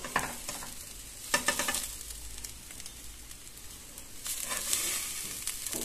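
A metal spoon scraping and scooping cooked grated radish in a non-stick pan, in short bursts about a second and a half in and again, longer, from about four seconds.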